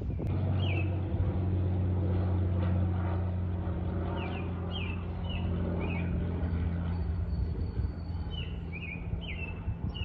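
Small airplane flying overhead: a steady low drone that eases off slightly toward the end. A bird chirps repeatedly over it, in short downward-sliding notes.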